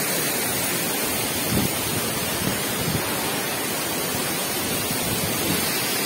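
Waterfall rushing: a steady hiss of falling water, spread evenly across the high and low range.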